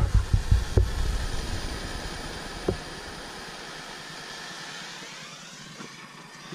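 Hand-held propane torch hissing steadily as its gas burns at the nozzle. A few low bumps come in the first second and a single click a little before three seconds in.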